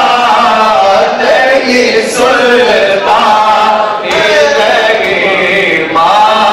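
A man singing a naat, an Urdu devotional poem in praise of the Prophet, in long wavering held notes.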